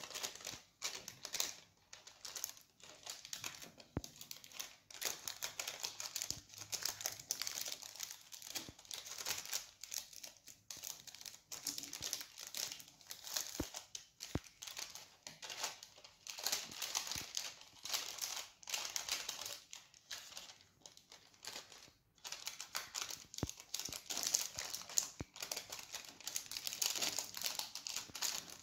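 Baking paper crinkling and rustling in quick, irregular bursts as it is folded and creased by hand, with a few faint sharp ticks.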